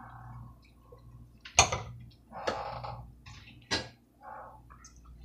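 Handling noises at a kitchen counter: three sharp clicks and knocks, a second or two apart, with short rustles between them.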